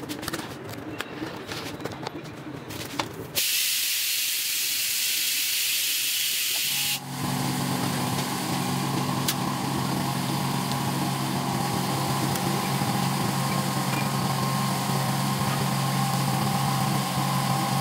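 A few light handling clicks, then a loud, steady hiss that starts abruptly about three seconds in and cuts off abruptly a few seconds later. After it comes a steady low electrical hum with a hiss behind it.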